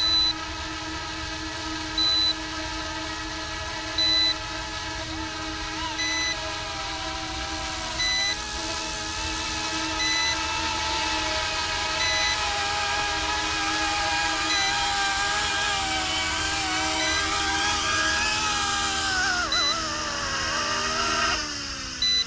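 Electric motor and rotor whine of a Yu Xiang F09-S RC helicopter, steady with small shifts in pitch, then winding down near the end as it sets down after returning home on a low battery. A short electronic beep repeats about every two seconds.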